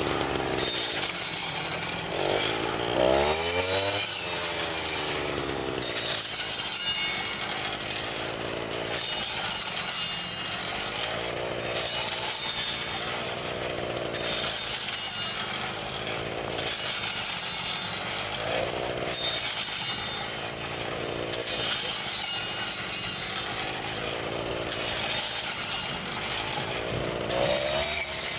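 Four-stroke 139F brush cutter engine running under load as the blade cuts through standing wheat. The engine speed rises and falls, and a swish of cut stalks comes in a steady sweep about every two and a half seconds.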